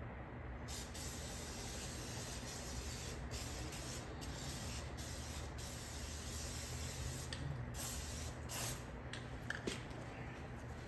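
Aerosol can of spray lithium grease hissing onto a motorcycle wheel hub in a series of bursts with short pauses between them, starting about a second in and loudest near the end.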